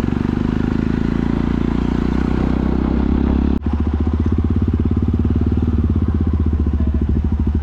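Jawa Perak's 334 cc single-cylinder engine running loud through an exhaust with the dB killer removed. About three and a half seconds in the sound breaks off sharply and goes on as a deeper, evenly pulsing exhaust note.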